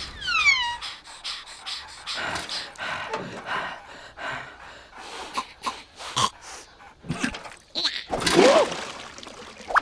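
Cartoon sound track of wordless character vocal noises, such as panting, gasps and grunts, mixed with comic sound effects. A falling whistle-like glide comes right at the start, quick knocks and clicks are scattered throughout, and a loud cry about eight seconds in is the loudest moment.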